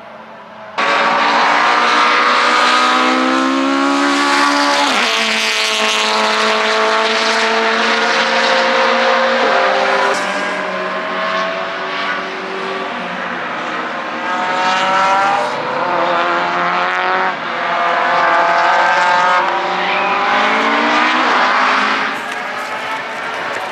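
Racing car engines at full throttle on a circuit. The pitch climbs hard and breaks off at each upshift, several times over. The sound starts abruptly about a second in.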